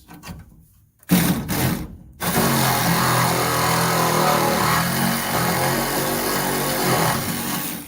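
Pneumatic air chisel hammering through rusted sheet-metal bracket: a short burst about a second in, then a steady rattling run for most of the rest, stopping near the end.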